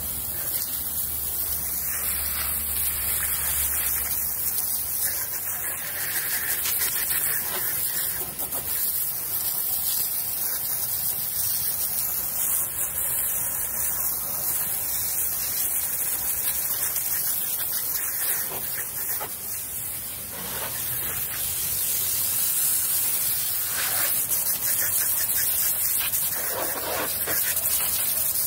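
Steady hiss of a jet of water from a hose nozzle spraying onto a car's wheel and tyre and the concrete beneath.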